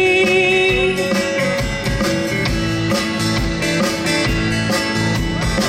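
Live country band playing an instrumental passage between verses: guitars strummed over a steady bass and drum beat.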